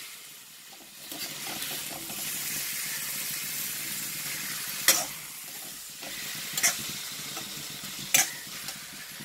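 Masala-coated chicken sizzling in oil in a black kadai as a metal spatula stirs and turns it, with three sharp knocks of the spatula against the pan in the second half. It is being fried on low flame until the raw smell of the masala cooks off.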